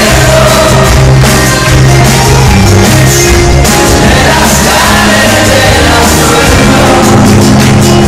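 Live rock band playing with a singer, heard loud from the audience in a large concert hall.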